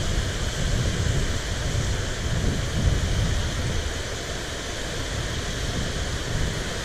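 Water rushing steadily over a creek spillway, with wind buffeting the microphone in low, uneven gusts.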